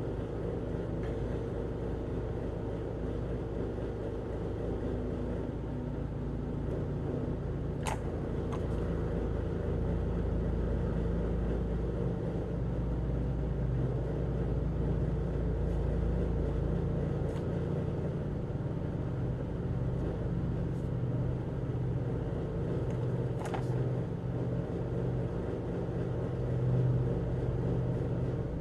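Electric fan running steadily close to the microphone, rather loud, with a low hum. Two faint clicks are heard, about 8 seconds in and near the end.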